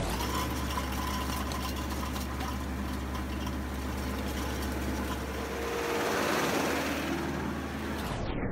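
Tractor engine running steadily while driving a tractor-mounted star-type under-row weeder through orchard soil, with a swell of louder noise about six seconds in.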